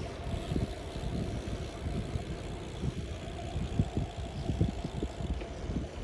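Wind buffeting the microphone of a phone carried on a moving bicycle: an irregular low rumble of gusts.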